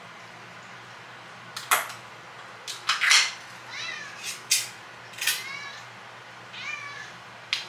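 Domestic cats meowing for their breakfast, three short falling meows in the second half, mixed with a few sharp clicks or knocks.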